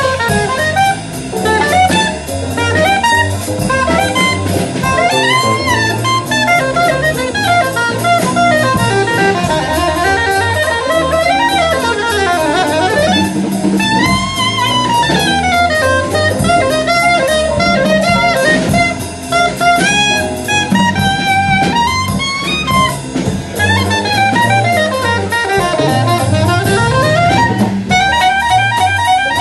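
Soprano saxophone playing a jazz solo, its melody bending and gliding, over a rhythm section of drum kit and electric bass.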